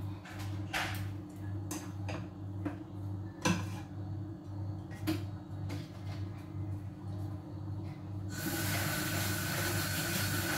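A few scattered light knocks and clinks over a steady low hum, then about eight seconds in a kitchen tap is turned on and water runs in a steady hiss into a stainless steel sink.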